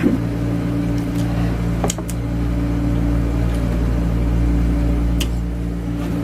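A steady low mechanical hum, like a running fan or motor, with a few short faint clicks over it, about two seconds in and again about five seconds in.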